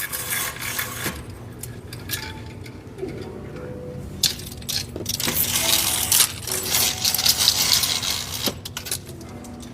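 Rustling and rubbing of fabric and body against a yoga mat, with a few light clicks, heaviest in the second half, as a person settles into a lying twist. Faint soft background music tones sound underneath.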